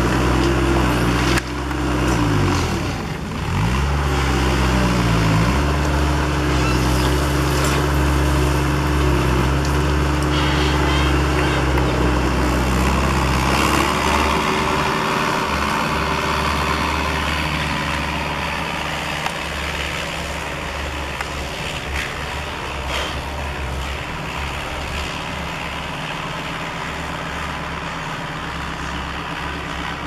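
Bobcat S130 skid-steer loader's diesel engine running hard. Its pitch dips and recovers a couple of times in the first few seconds as it takes load. Past the middle it becomes quieter and fainter as the machine drives away.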